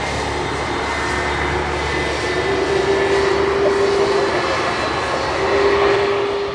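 Airbus A321-231's twin IAE V2500 turbofan engines running as the jet rolls past along the runway: a loud, steady jet noise with a whining tone through it.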